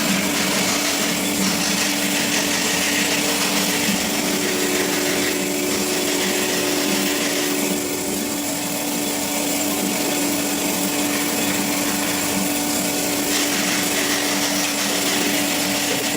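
CORMAK S-200R semi-automatic metal band saw running steadily, its blade sawing through metal stock with a constant motor hum under the cutting noise.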